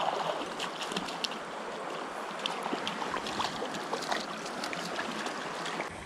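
Shallow creek water running over a rocky bed, a steady rush, with scattered small sharp splashes from a hooked rainbow trout thrashing at the surface.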